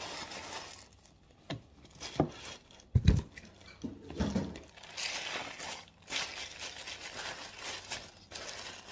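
Cardboard box being handled, with a few knocks and thumps, the loudest about three seconds in. Then white paper and plastic wrapping crinkling steadily from about five seconds in as the contents are pulled out.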